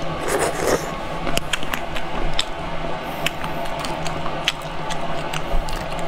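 Close-up eating sounds: biting into and chewing a soft, saucy deboned pig's trotter, with wet squishy bites and smacking clicks scattered every second or so, over a steady low hum.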